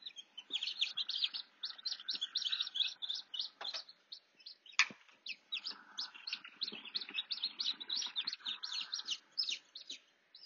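Newly hatched chicken chicks peeping, many short high peeps overlapping in quick succession, with a single sharp click about five seconds in.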